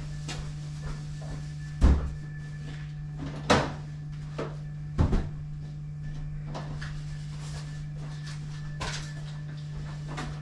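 Plastic crates knocking and clattering as they are handled: three louder knocks in the first half among lighter clicks. A steady low hum runs underneath.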